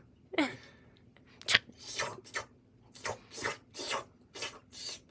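A person making short, raspy hissing sounds with the mouth as a sound effect to tease a cat: about nine quick rasps, roughly two a second.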